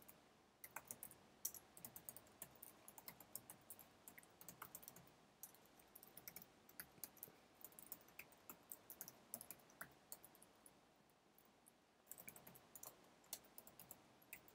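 Faint typing on a computer keyboard: irregular runs of quick key clicks, with a pause of a second or two about ten seconds in.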